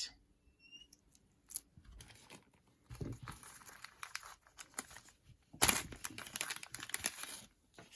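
Packaging crinkling as it is handled, in two stretches: one about three seconds in and a louder one from about six seconds, after a few light clicks.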